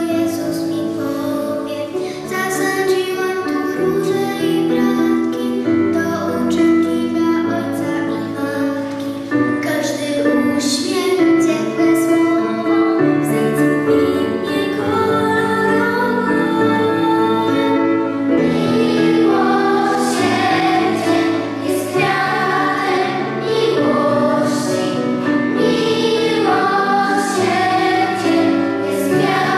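Children's choir singing a religious song together, steady and continuous.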